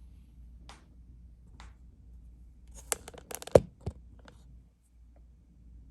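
Light clicks and taps of hands handling small objects. They come singly at first, then in a short cluster of sharper knocks about three to four seconds in.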